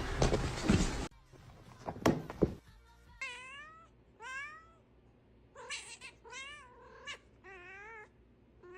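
A cat meowing repeatedly, about six short meows that rise and fall in pitch, starting about three seconds in. It follows a burst of loud music in the first second.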